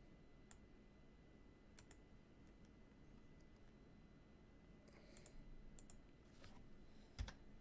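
Faint, scattered clicks of a computer keyboard and mouse as a settings field is edited, against near silence, with a soft thump about seven seconds in.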